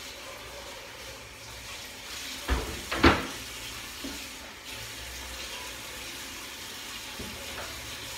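Tap water running into a kitchen sink as wooden cutting boards are washed. Two sharp wooden knocks come about two and a half and three seconds in, the second the loudest, as the boards are stood up against the counter, with a couple of lighter clunks later.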